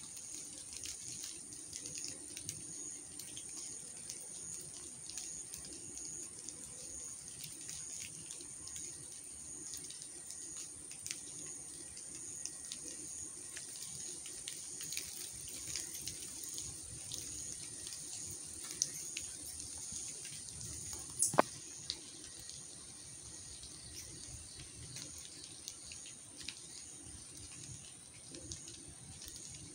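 Rainwater dripping and trickling from wet trees after a heavy shower: many small scattered drips over a steady high whine, with one sharp click about two-thirds of the way through.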